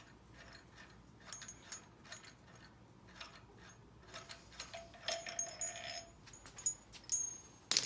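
Light metallic ticks and clinks as the balancer install tool's threaded rod and nut are turned by hand and pulled off the crankshaft snout of an LS 5.3 engine. A ringing clink comes about five seconds in and a sharp click near the end.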